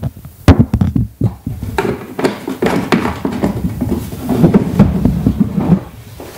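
Knocks and handling noise as a handheld microphone is set down on a counter and a full 20-litre plastic water jerrycan is gripped and heaved up off the counter, with sharp knocks near the start and a denser stretch of rough handling noise in the last couple of seconds.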